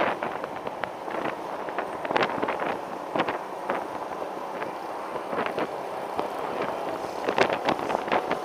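Wind rushing over the microphone of a motor scooter on the move, mixed with its running noise, with short gusty crackles now and then that come thicker near the end.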